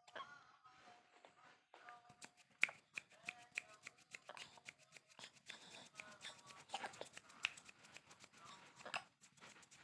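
A baby's short, soft vocal sounds, brief held tones, amid many small clicks and taps of handling. All of it is faint.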